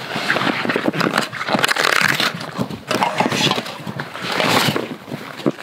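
Packed snow crunching and scraping in a quick, irregular run of short noises as gloved hands push beer cans into a hollow dug in a snowbank.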